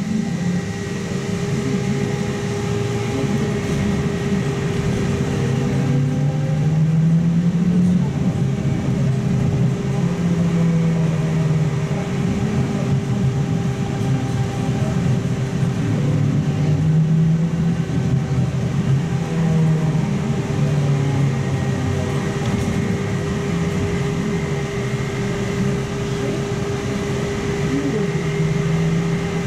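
Trolza-5265.00 Megapolis trolleybus heard from inside its cabin while moving: a steady whine from its electrical equipment over a lower drone that rises and falls, with road and tyre noise.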